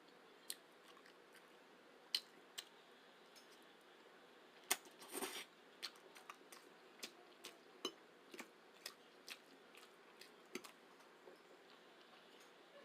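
Faint, close-miked chewing of a spaghetti dinner: wet mouth clicks and smacks, with a short louder cluster about five seconds in, then steady chewing clicks about twice a second.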